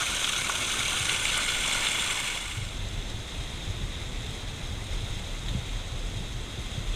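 Hiss of running water for the first two and a half seconds or so, then it falls away and a lower rumble of wind on the microphone takes over.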